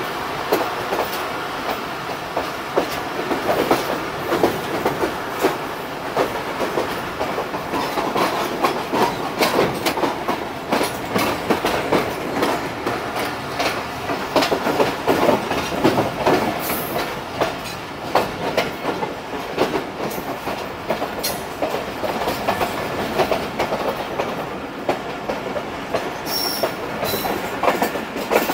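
Awam Express passenger train running, its coach wheels rumbling and clacking irregularly over rail joints and points as it takes the loop line. A brief high squeal comes near the end.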